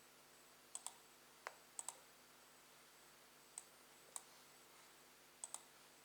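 Faint, sharp clicks at irregular intervals, about nine in all. Several come in quick pairs a tenth of a second apart.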